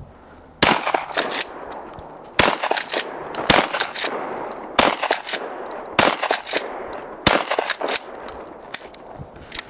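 Remington 870 pump-action 12-gauge shotgun fired six times in quick succession, about one shot every second or so, with lighter clicks between the shots.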